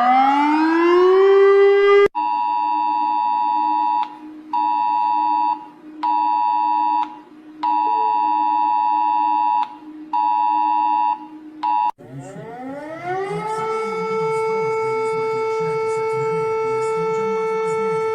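Emergency alert alarm tones in three abrupt segments. A siren finishes gliding up to a steady pitch, then is cut off about two seconds in by high steady tones that switch on and off in an uneven pattern over a steady low drone. About twelve seconds in, a siren winds up to a steady wail.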